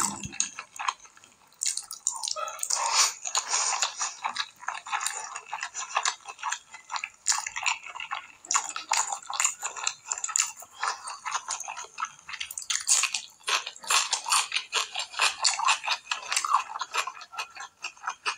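Close-up wet eating sounds of rice and mutton curry eaten by hand: fingers squishing rice into the curry gravy and mouth chewing, a dense, irregular run of small smacks and squelches.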